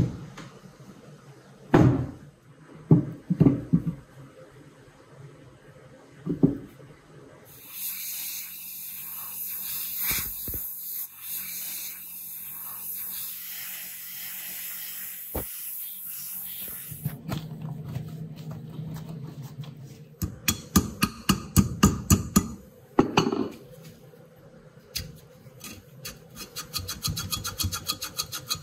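Sharp knocks as the cast-iron body of an antique clothes iron is set down and handled on a workbench. Then a die grinder with a stone point runs steadily for about ten seconds with a high hiss, grinding rust off the cast iron. A fast run of sharp clacks and taps follows as the iron's parts are handled.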